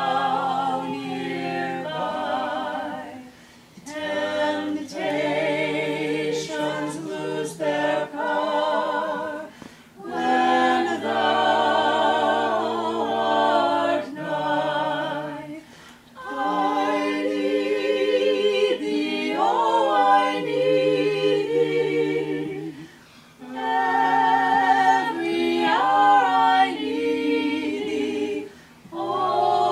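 A small group of mixed men's and women's voices singing a cappella in close harmony, in phrases of about six seconds with brief pauses for breath between them.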